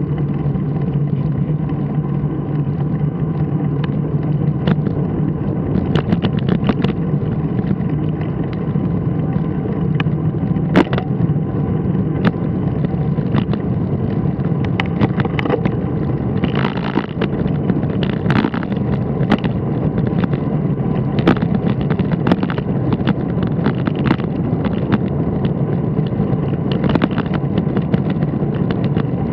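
Steady motor drone of a vehicle being ridden along a street at an even pace, with scattered sharp clicks and knocks over road bumps.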